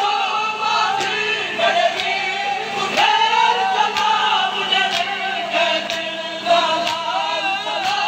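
Noha recited live by a male voice, with the crowd of mourners joining in. A sharp beat comes about once a second throughout, the mourners' chest-beating (matam) in time with the recitation.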